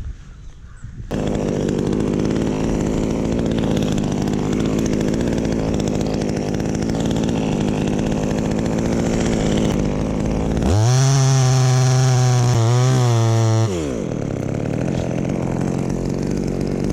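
Chainsaw running as a tamarind tree is cut. It starts about a second in and runs steadily, revs higher for about three seconds, falls back, and stops at the very end.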